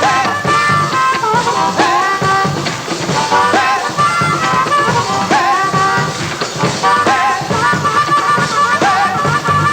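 Live rock music from a band: drum kit keeping a steady beat under a melody line that bends in pitch.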